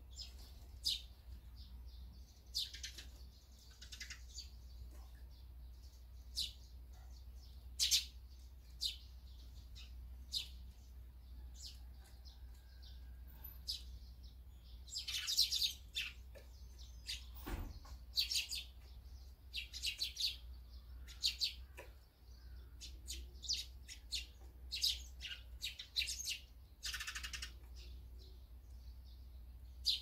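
Eurasian tree sparrows chirping: many short, high chirps come irregularly throughout, with a busier run about halfway and another near the end, over a steady low hum.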